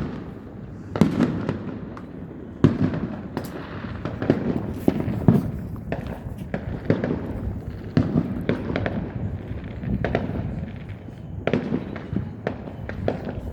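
Fireworks going off: an irregular run of sharp bangs and pops, one after another, over a low rumble.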